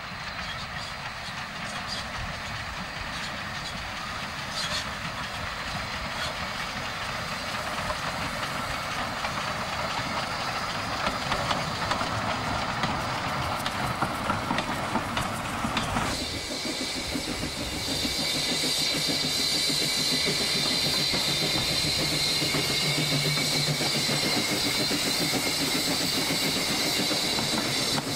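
A 760 mm narrow-gauge steam train hauled by a 1906 Krauss steam locomotive runs past, growing louder as the carriages roll by with wheels clicking over the rail joints. After a sudden change about halfway through, the working locomotive is heard close by, with a steady steam hiss.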